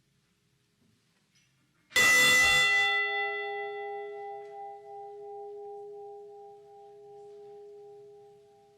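A single strike of a memorial bell about two seconds in, tolled for a lost crew member just named. It rings on in a few steady tones that fade slowly and are still sounding at the end.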